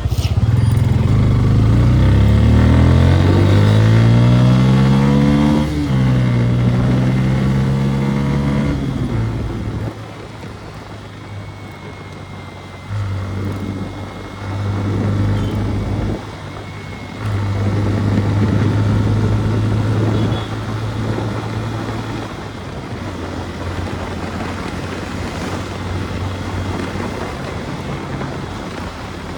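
Motorcycle engine pulling away, rising in pitch, with a gear change about six seconds in and a second rise before the throttle is eased off at about ten seconds. After that it runs on at part throttle with two shorter steady pulls and then settles lower.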